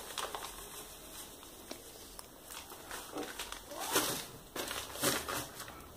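A plastic bag of flour crinkling as it is handled and poured, with a few short rustles and scrapes.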